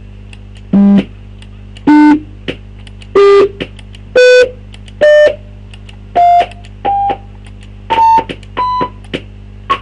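Computer-generated electronic beeps from MSWLogo's SOUND command, triggered by clicking on-screen piano buttons from C upwards. There are nine short beeps, about one a second, each a step higher in pitch than the last, with faint clicks between them.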